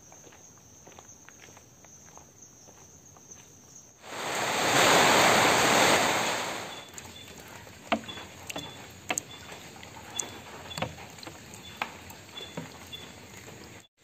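About four seconds in, a loud rush of noise starts suddenly and lasts nearly three seconds before fading. After it, water drops plop irregularly into a rain puddle, with a faint high chirp repeating.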